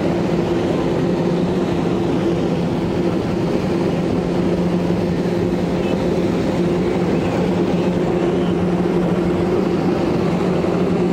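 Watercraft engine running steadily, a constant drone with two even tones, over the rush of water spray.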